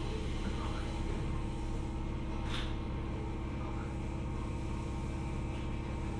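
Steady electrical hum of a Jomo Electric Railway 700-series (ex-Keio 3000-series) electric car standing at a station, heard from inside the car, with a single sharp click about two and a half seconds in.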